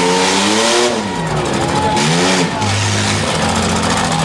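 Six-cylinder demolition derby car engines revving: one climbs for about a second and drops back, then revs up and down again around two seconds in, over the steady running of other engines.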